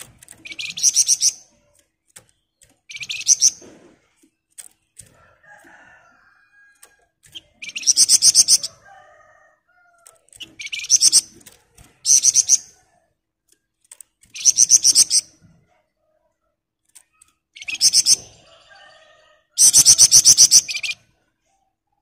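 Caged flamboyan songbird singing its dense, rapid rattling trill ('ngebren'): about eight high-pitched bursts of fast repeated notes, each a second or so long. Fainter chirps come between the bursts.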